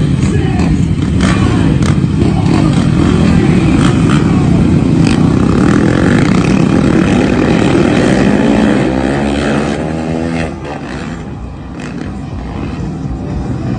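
Sport quad and dirt-bike engines running loud and revving, with sharp cracks of throttle. About two-thirds of the way through, an engine note falls in pitch and the overall level drops.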